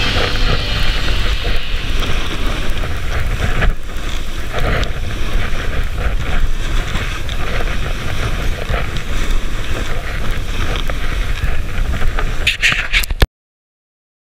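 Wind buffeting the microphone of a skier-worn action camera during a fast descent through powder, with the hiss of skis cutting through soft snow. The sound cuts off suddenly about a second before the end.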